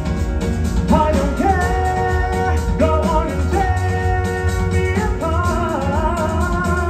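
Music with a woman or man singing over a heavy bass; the voice comes in about a second in and holds long, sustained notes.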